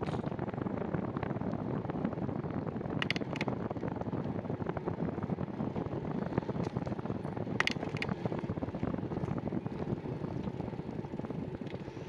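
Wind buffeting the microphone of a handlebar-mounted camera and tyre noise from a bicycle riding along a dirt path, with two pairs of short sharp clicks about three and seven and a half seconds in.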